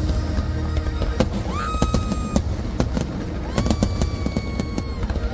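Aerial fireworks bursting in a dense barrage: rapid sharp bangs and crackles over a continuous low rumble. A high tone comes in with a short upward slide and holds about one and a half seconds in, and a second, longer one about three and a half seconds in.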